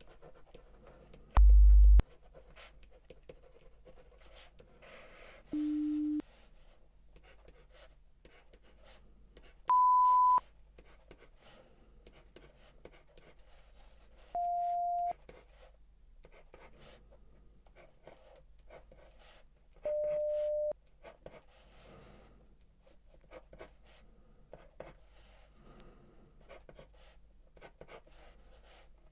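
Hearing-test tones: six short pure beeps, each about half a second long, at different pitches spaced a few seconds apart. The first, a very low hum, is the loudest; three sit in the middle range, and the last is very high.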